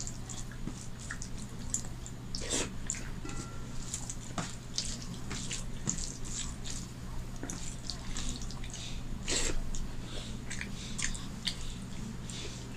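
Fingers mixing rice with lentil dal on a stainless steel plate: irregular wet squishing and small clicks. Near the end, a mouthful is eaten with close mouth sounds.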